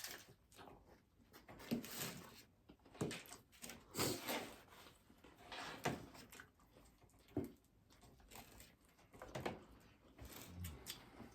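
Crunchy hard taco shells being bitten and chewed: scattered short crunches every second or two.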